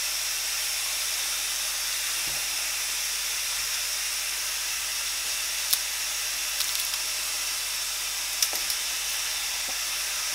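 Steady hiss of a steel pot of seasoned fish steaming on a hot stove, with a couple of light clicks in the second half.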